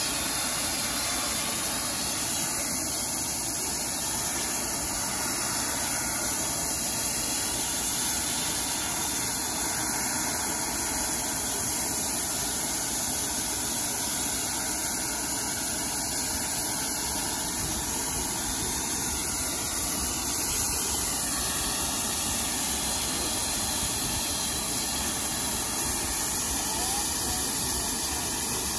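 Steam locomotive hissing steam, a steady, unbroken hiss.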